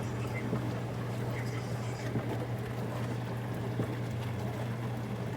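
Tank-type countertop dishwasher running: a steady motor hum with water splashing inside the tub.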